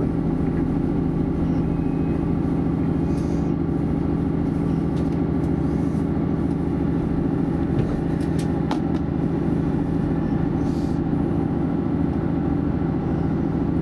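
Cabin sound of a DB class 641 diesel railcar running at speed: a steady diesel engine drone with rolling noise from the wheels on the track, and a few brief clicks.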